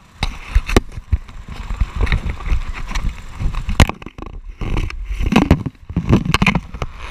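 Camera handling noise: irregular knocks, scrapes and rumble as the camera bumps and rubs against a helmet visor during a go-kart ride.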